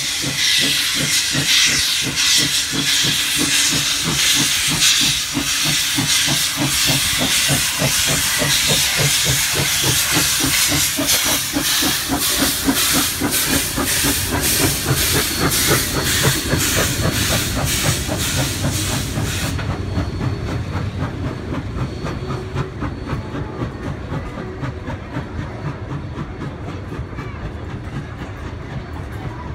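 Narrow-gauge BB18¼ class steam locomotive pulling away past the platform, its exhaust beating in a steady chuffing rhythm under a loud hiss of steam. About twenty seconds in the hiss drops away, leaving the wooden carriages rolling past, fading as the train moves off.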